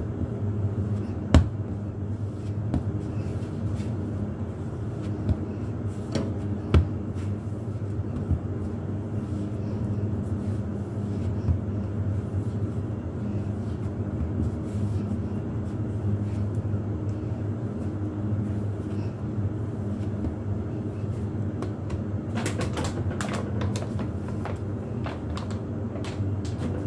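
Bread dough being kneaded by hand on a floured countertop: now and then a sharp knock or thump, the loudest about a second and a half in, and a quick run of clicks and knocks about 22 seconds in. Under it a steady low hum runs throughout.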